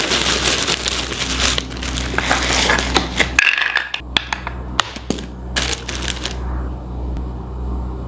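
Handling noise: a few seconds of crinkling plastic, then sharp dry clicks as hard, round oak galls knock against each other and a wooden bowl.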